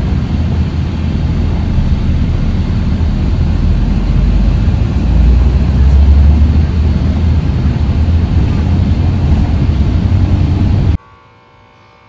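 Engine and road noise heard from inside a moving bus: a steady low rumble that swells about five seconds in, then cuts off suddenly near the end.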